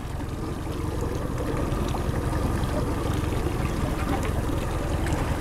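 Boat underway at trolling speed: a steady low drone from the engine in gear, with water washing along the hull.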